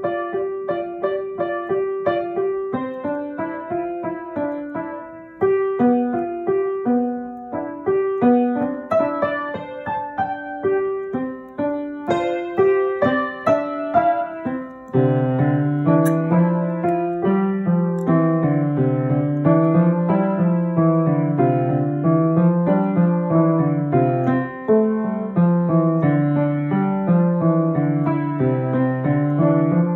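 Upright piano being improvised on, notes struck one after another. For the first half it is mostly repeated notes in the middle register; about halfway through a low bass line comes in, rising and falling in a repeating wave about every two seconds under the upper notes.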